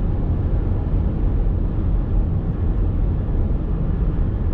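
Steady low road and engine rumble inside a moving car's cabin while driving.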